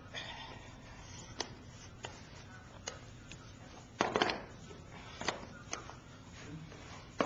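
Cardboard jigsaw puzzle pieces being handled and pressed into place: scattered light taps and clicks, with a louder, longer burst of sound about four seconds in.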